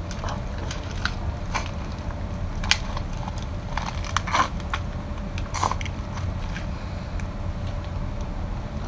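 Close-up eating sounds: a person biting and chewing chili-coated shellfish, with scattered crunchy clicks, the sharpest about three, four and a half and five and a half seconds in, over a steady low hum.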